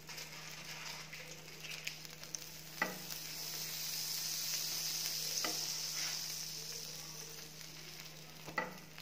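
Butter sizzling and foaming on a hot flat tawa as sandwiches toast, the sizzle swelling through the middle, with a few light taps of a spatula against the pan.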